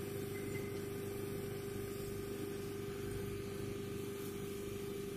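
Hot air rework gun blowing steadily on a DVR circuit board to heat it: an even whir and hiss from its blower, with a steady tone and hum underneath.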